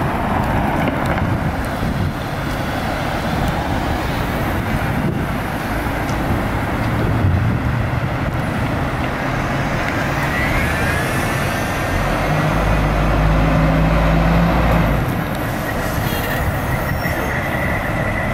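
Street traffic passing, with a fire truck's heavy diesel engine running and revving louder for a couple of seconds as the ladder truck pulls out of its bay. A rising whine comes in about ten seconds in, and a steady high tone sounds near the end.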